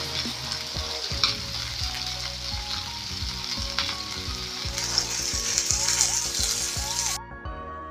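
French fries deep-frying in hot oil in a pan: a steady sizzle that gets louder about halfway through as more raw fries are dropped in, then cuts off suddenly near the end.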